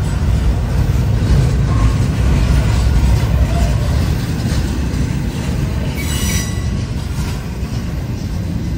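CSX intermodal freight train's cars rolling past with a steady low rumble and wheel clicks. A brief high-pitched wheel squeal comes about six seconds in.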